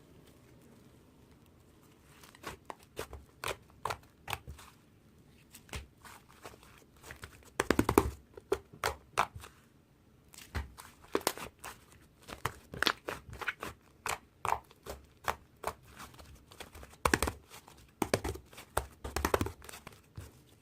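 Irregular crunching and crinkling noises: a quick, uneven series of short sharp crackles, with a few louder clusters about a third of the way in and again near the end.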